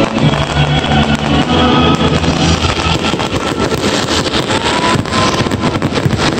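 Fireworks bursting with dense, rapid crackling and popping over loud music. The music is most prominent in the first half, and the crackle grows denser after that.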